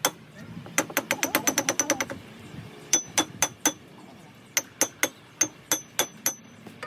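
Hammer striking steel in groups of blows, each with a short metallic ring: a quick run of about a dozen strikes about a second in, then slower sets of about four strikes a second.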